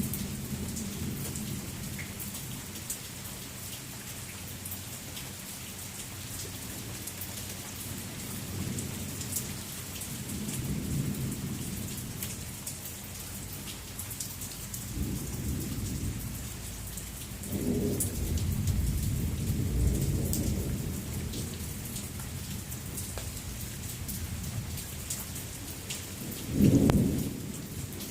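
Thunderstorm: steady rain hissing, with thunder rumbling and rolling several times. A louder, sharper clap of thunder comes near the end.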